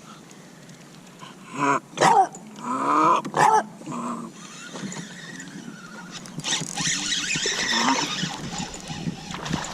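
A bulldog vocalizing in several short moans that slide in pitch during the first few seconds, followed later by a couple of seconds of rushing noise.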